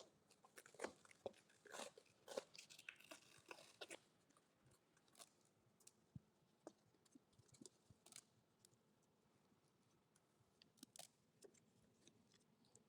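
Near silence with faint, scattered clicks and rustles, mostly in the first four seconds and again near the end: hands handling a collapsible leather trunk organizer and its removable divider.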